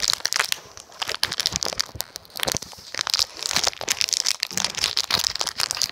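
Foil wrapper of a Pokémon card booster pack crinkling and tearing as it is ripped open by hand, in a rapid, irregular crackle.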